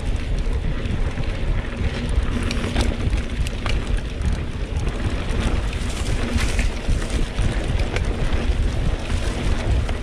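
Wind rumbling steadily on the microphone of a camera riding on a mountain bike, with scattered clicks and rattles from the bike.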